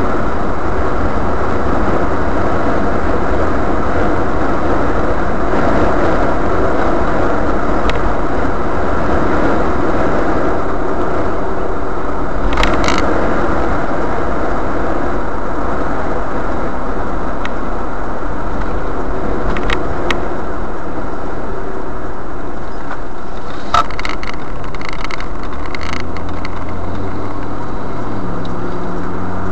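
Steady road and engine noise of a moving car heard from inside the cabin, with a few short clicks or rattles along the way. Near the end a low steady hum comes in.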